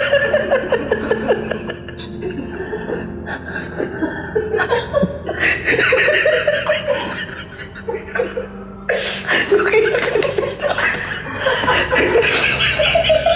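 A man laughing heartily in long fits of chuckles that die down and pick up again.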